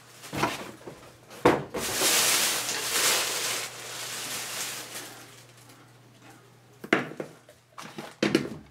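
Cardboard box and packaging being handled and cleared away: a knock, then a few seconds of rustling and scraping that fade out, followed by a few knocks as plastic parts are set down on a desk mat.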